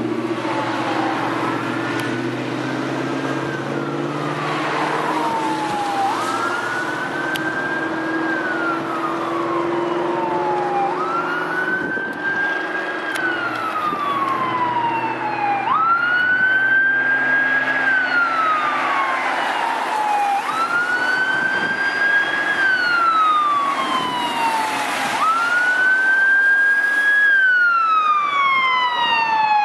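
Whelen electronic siren on a responding fire apparatus, sounding the wail: each cycle rises quickly, holds briefly and slides slowly down, about every five seconds. It grows louder over the second half as the vehicle approaches.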